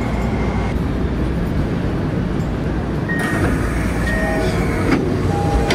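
Inside a Toei Oedo Line subway car: steady low rumble of the train as it comes into a station. About three seconds in a high hiss sets in as the doors open, with a few short beeping tones.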